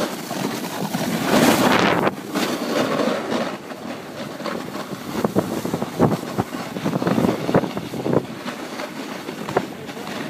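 Snowboard sliding and scraping over snow, with wind rushing across the microphone. It is loudest for the first two seconds, then drops to a lighter scrape with scattered knocks.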